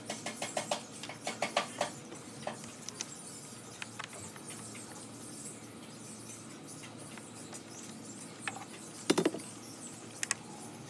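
Light clicking and ticking of a small T25 Torx key turning the screws of a plastic air filter cover: a quick run of clicks at first, then scattered faint ticks, with a sharper clack about nine seconds in and two more just after ten.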